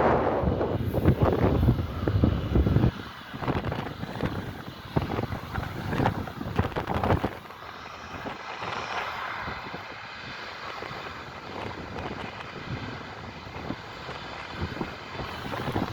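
Boeing 777-200ER jet engines rumbling as the airliner passes, with loud gusts buffeting the microphone over the first few seconds. After about seven seconds the sound settles into a steadier, quieter rumble with a faint engine whine.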